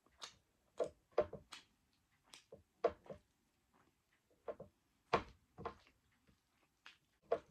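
Close-miked hand-eating sounds: irregular short wet smacks and clicks from chewing a mouthful of dal bhat and from fingers mixing rice and dal on the plate, about one or two a second.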